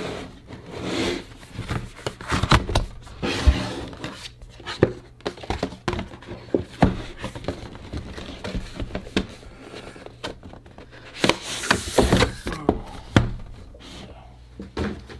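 Cardboard packaging handled and opened by hand: irregular knocks, taps and scraping rubs as the printed outer sleeve comes off a plain white inner box, with a cluster of louder knocks and rustling past the middle.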